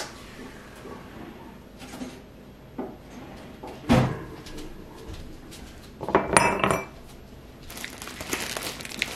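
Dishes and cutlery clattering on a table: a few knocks of plates and bowls being set down, the loudest about four seconds in, then a ringing clink of metal utensils a couple of seconds later.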